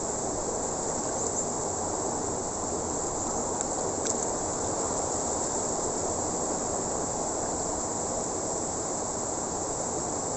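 Steady high-pitched drone of insects, with an even rushing noise underneath and a faint tick about four seconds in.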